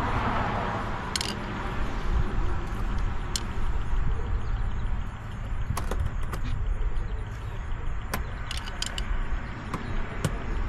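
Scattered light clicks and clinks of hand tools working plastic bumper clips loose, over a steady low rumble.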